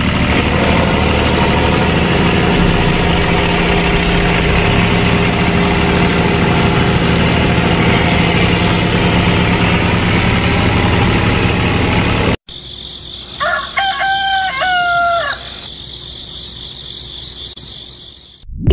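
A tractor engine running steadily for about twelve seconds, then cutting off abruptly. Over a faint hum that follows, a rooster crows once.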